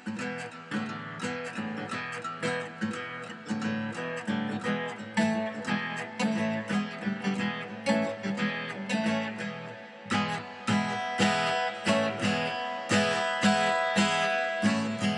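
Background music: a tune on strummed guitar with a quick, steady rhythm.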